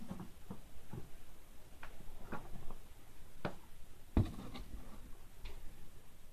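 Scattered small clicks and knocks of objects being handled on a table, with one louder, low thump a little after four seconds in.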